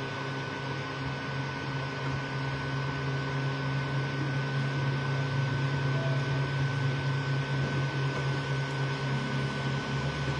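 Creality Ender 3 V2 3D printer running mid-print in PLA: its fans and stepper motors make a steady mechanical hum with a constant high tone running through it.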